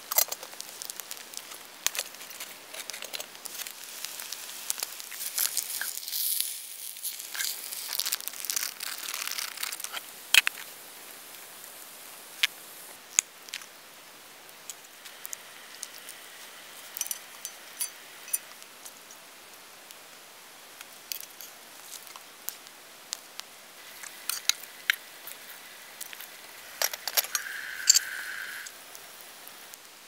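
Small wood campfire crackling with scattered sharp pops under a frying pan of eggs, with a hissing sizzle swelling for a few seconds about six seconds in. Light handling sounds of food being placed in the pan.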